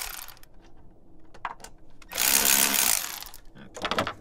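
Cordless electric ratchet wrench with a 10 mm socket running in one burst of about a second, about two seconds in, loosening a bolt. A few clicks and rattles follow near the end.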